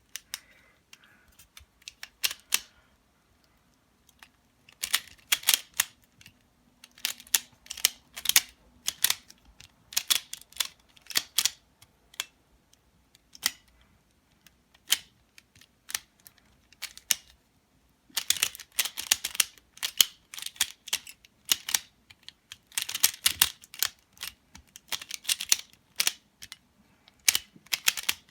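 Plastic Pyraminx puzzle being turned fast: clusters of quick, sharp clicks, with short pauses between the bursts.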